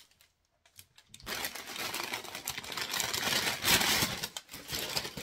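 Brown kraft paper rustling and crinkling as a paperback book is pulled out of its paper wrapping, starting about a second in.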